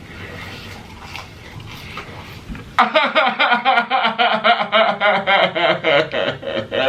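A man's loud, rhythmic cackling laugh bursts out about three seconds in, pulsing several times a second, after a few seconds of quieter room noise.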